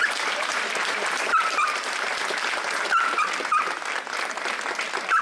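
Crowd applauding, a dense patter of many hands clapping, with short high-pitched yelps cutting through four or five times.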